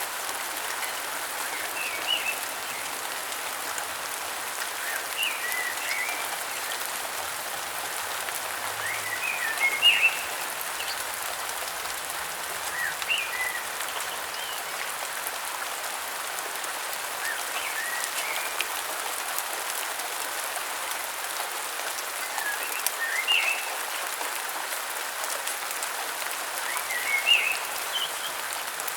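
Steady rain hiss, with a bird's short chirping calls every three to five seconds.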